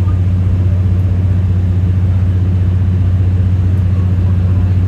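Steady low drone of an idling diesel engine, heard inside a standing 12-series passenger coach, even and unchanging throughout.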